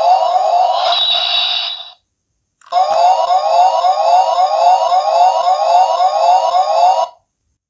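Dekaranger SP License DX toy playing its electronic siren sound effect: a police-style wail of quick rising sweeps, about two a second. It stops about two seconds in, restarts a moment later and cuts off near the end.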